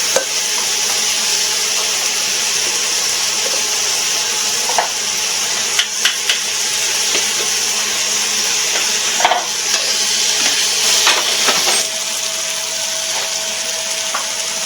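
Chicken quarters sizzling on a grill: a steady frying hiss, with a few light knocks. The sizzle drops a little near the end.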